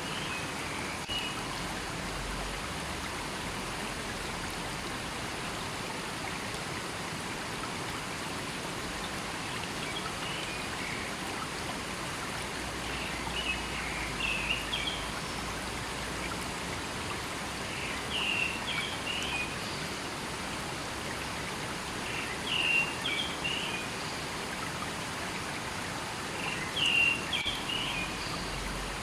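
River water flowing steadily, with a bird calling short chirping phrases about every four seconds over it, the calls louder in the second half.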